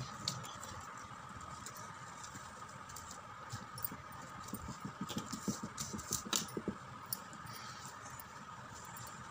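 Hands rustling and tapping a strip of fringed paper, in small scattered handling noises that come thickest in the middle, over a steady faint high whine.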